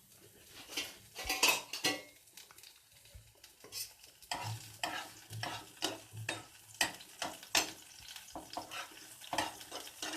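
Spring onion frying in hot oil in a pan, stirred with a spatula: sizzling under repeated scraping strokes against the pan, about two a second through the second half.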